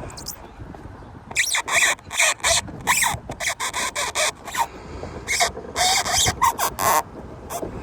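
An H11 LED bulb's base squeaking and scraping against the plastic of the fog light socket as it is twisted in to lock in place: a series of short, irregular squeaks and rubs.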